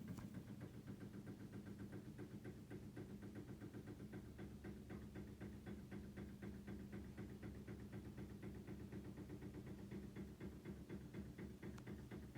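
A washing machine running in a neighbouring flat, heard faintly: a steady low hum with a fast run of small ticking knocks, several a second.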